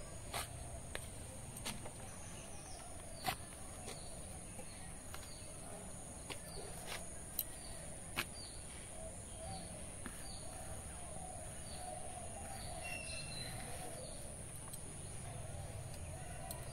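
Thin eggplants being cut on a boti, a fixed upright curved blade, giving crisp clicks as the blade goes through, a dozen or so at irregular intervals and mostly in the first half. Behind them a steady high insect drone and birds chirping.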